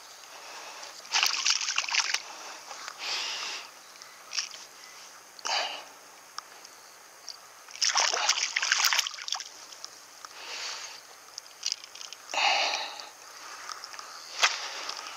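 Hooked largemouth bass splashing at the water's surface as it is brought in to the shore rocks, in a series of separate splashes, the loudest about eight seconds in.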